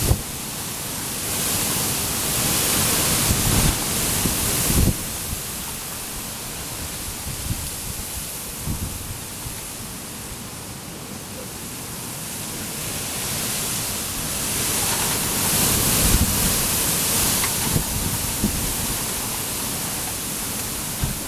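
Strong wind blowing in gusts, with low rumbling buffets on the microphone. It swells twice, once in the first few seconds and again a little past the middle, and eases in between.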